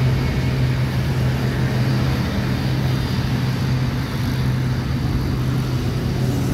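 Turboprop airliner, an ATR 72, rolling out on the runway with its engines and propellers giving a steady low drone over a haze of noise.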